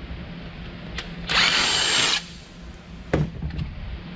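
Cordless DeWalt 20V drill-driver running in one short burst of about a second, a little after a click. A few light knocks follow near the end.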